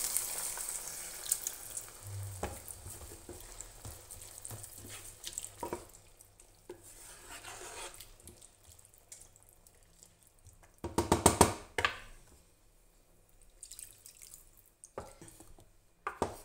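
Beef stock poured into a hot frying pan of onion and walnuts, the sizzle dying away over the first couple of seconds as the liquid cools the pan. Then a wooden spoon stirs the sauce, with scattered scrapes and taps against the pan and a louder run of scraping strokes about eleven seconds in.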